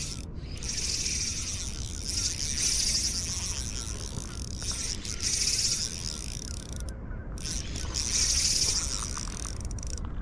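Spinning fishing reel being cranked to work a jig, a fine whirring hiss that swells and eases every few seconds and stops short a few times, over low wind rumble on the microphone.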